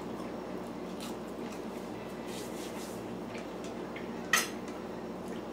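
Quiet chewing over a steady low room hum, with faint small clicks and one sharp clack a little over four seconds in, a utensil knocking against a plastic takeout dish.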